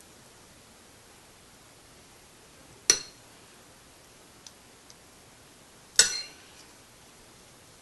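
A metal spoon clinks twice against steel cookware, about three seconds apart, each strike ringing briefly, with a couple of faint ticks between them.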